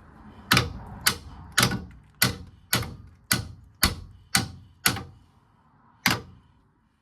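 Hammer blows on metal, driving the car's lower suspension ball joint into place: about two sharp strikes a second, nine in a row, then one more after a short pause.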